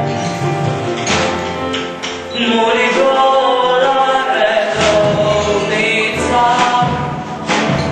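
A woman singing a song into a microphone over instrumental accompaniment, holding long notes with vibrato.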